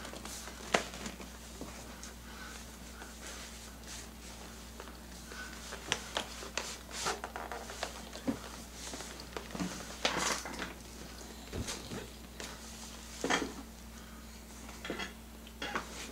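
Handling noises of a large doll being moved and settled into a chair: scattered rustles and small knocks, with a steady low hum underneath.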